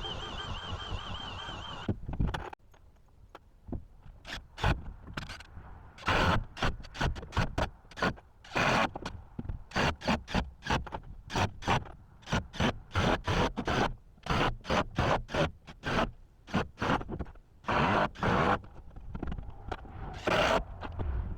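A steady sound with a wavering tone stops about two seconds in. It is followed by a long, irregular run of sharp knocks and blows, some in quick clusters and some drawn out like scrapes, typical of hammering and working wooden floor boards.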